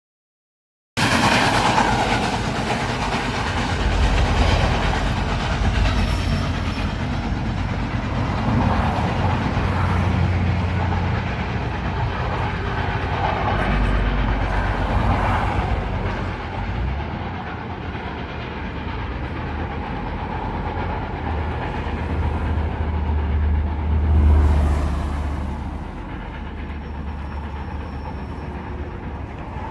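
Passenger cars of a steam-hauled excursion train rolling past close below, a steady rumble with wheel clatter on the rails. The sound starts suddenly about a second in and swells a few times as cars pass.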